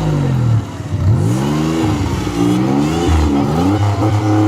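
Competition off-road 4x4's engine revving hard, its pitch rising and falling over and over, then holding steady near the end.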